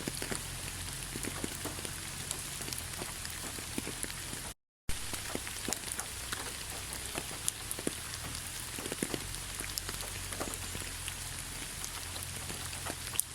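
Steady rain falling, with many individual drops ticking sharply through the hiss. About a third of the way in, the sound cuts out completely for about a quarter of a second, then resumes.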